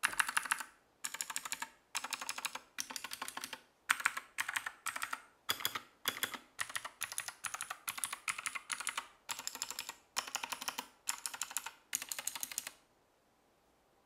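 Royal Kludge RK G68 mechanical keyboard with clicky Gateron Blue switches being typed on in quick runs of keystrokes with brief pauses between, stopping near the end.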